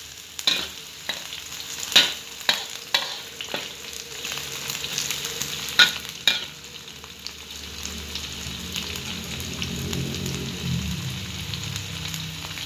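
Sliced shallots, garlic, ginger and kencur sizzling as they fry in hot oil in a wok, with a spatula clicking and scraping against the pan a dozen or so times over the first half. A low hum comes in over the second half.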